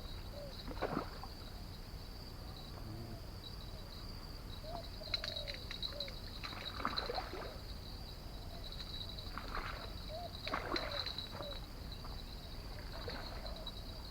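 Water sloshing and splashing in several short bouts, over a steady high-pitched hiss with a few short chirps in the background.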